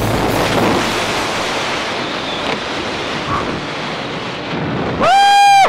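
Freefall airstream buffeting the microphone: a steady loud rush of wind. Near the end a loud, held voice cuts in over it.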